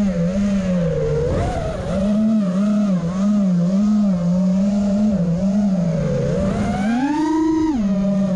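Small multirotor drone's electric motors and propellers whining, the pitch wavering up and down with the throttle. Near the end it climbs to a higher pitch and then drops back sharply.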